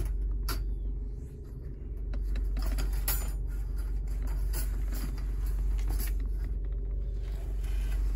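Steady low rumble of a car heard from inside the cabin, with a scattering of light clicks and rattles from the wire trap cage as it is handled.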